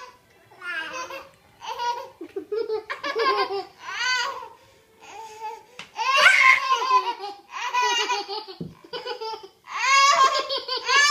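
Toddlers laughing and squealing in a string of short bursts, loudest in the middle and again near the end.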